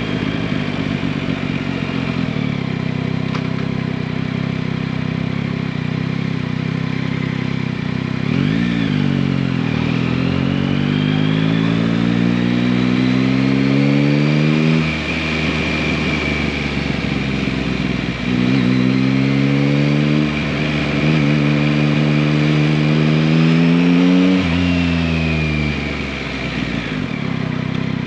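2021 Yamaha MT-09's 890 cc inline three-cylinder engine running steadily while riding, then accelerating hard twice with the pitch climbing through the revs. Each pull lasts about six seconds and drops off suddenly as the throttle closes.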